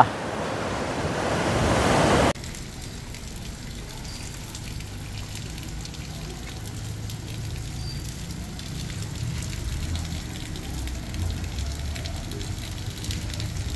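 Heavy storm surf breaking on the beach, swelling for about two seconds, then cut off abruptly; a quieter, steady noise follows, with faint pattering that fits rain.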